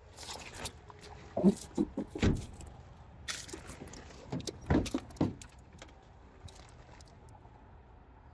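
Loose metallic clatters and knocks from something being handled, coming in two clusters: one about a second and a half in, another about four and a half seconds in, with lighter clicks between them.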